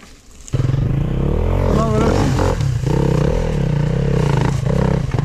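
Dirt bike engine revving hard under load, cutting in suddenly about half a second in and held at high revs with a wavering pitch, then dropping away near the end.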